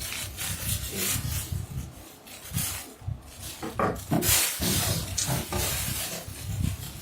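Unboxing handling noise: plastic jars, lids and packaging rubbing, sliding and knocking against one another in irregular bursts, with a brief squeak near the middle.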